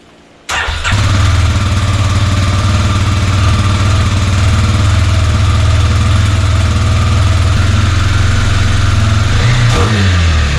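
Kawasaki KLX300R single-cylinder four-stroke engine breathing through a newly fitted Pro Circuit T6 full exhaust, starting about half a second in and settling into a steady idle. Near the end the pitch wavers briefly with a few light blips of the throttle.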